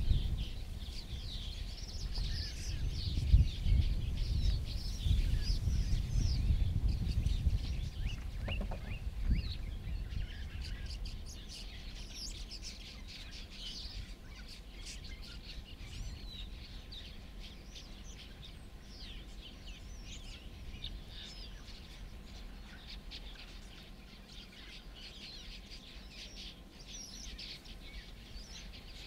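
Small wild birds chirping and twittering in dense, overlapping calls. A low rumbling noise runs under them for the first ten seconds or so, then dies away.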